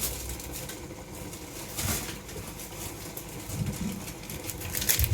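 Baking paper rustling and crinkling as it is handled, in several short bursts, with a few brief low sounds between them.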